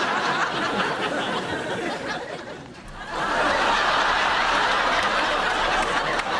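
Studio audience laughing in two waves. The laughter dies down briefly about two and a half seconds in, then swells up again louder and holds.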